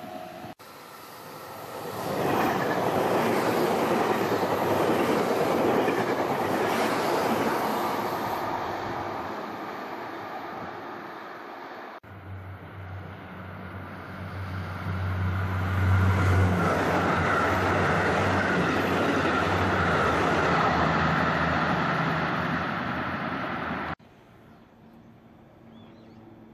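Electric trains passing at close range: a loud rush of wheel and rail noise that swells and fades away. After a cut comes a second pass with a steady low hum under the rush. After another cut, near the end, it is much quieter, with distant rail noise as an electric freight locomotive approaches.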